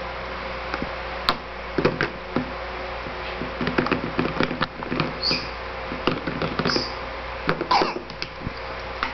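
Irregular knocks and taps as a baby handles and bangs a small object, with three brief high squeaks in the second half.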